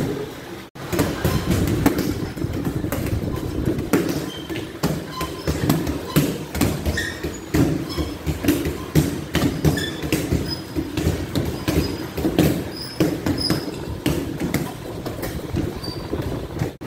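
Punches and strikes landing on hanging heavy bags and a padded striking dummy in a busy training session: an uneven stream of thuds, several a second, overlapping.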